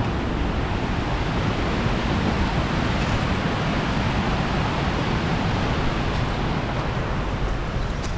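Steady rush of water pouring over a dam.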